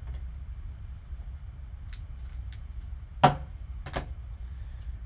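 A few sharp clicks and taps from trading cards being handled and set down on a table, the loudest a little past three seconds in, over a steady low hum.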